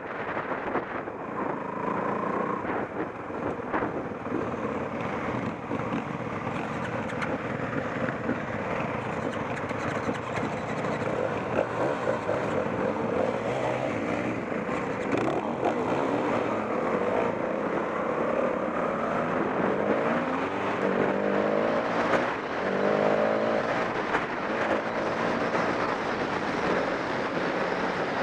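Off-road motorcycle engine running as the bike is ridden, its pitch rising and falling with the throttle, most clearly in the last third.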